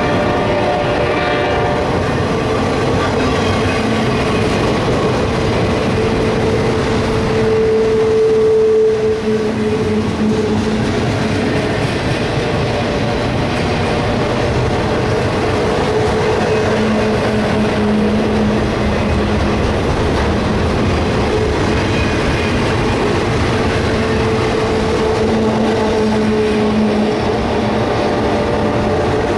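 CSX intermodal train's container well cars rolling past on a curve: a steady rumble and clatter of wheels on the rails. A drawn-out tone swells and fades a few times over it, loudest about eight seconds in.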